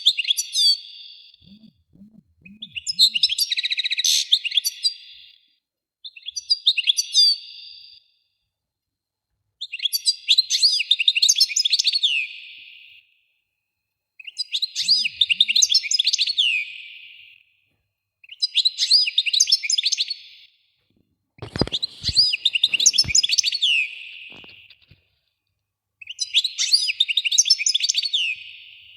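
A songbird singing phrase after phrase of high warbles, trills and falling notes, each a few seconds long with short pauses between. A few knocks come about two-thirds of the way through.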